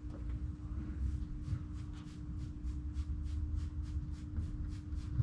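Outdoor ambience: a low, uneven rumble with a steady low hum under it, and from about a second in a faint, fast, even ticking, about four ticks a second.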